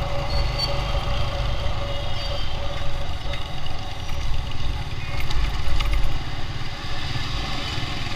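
Motorcycle engine running steadily while riding, heard from on the bike itself, with a continuous low rumble and a steady engine note.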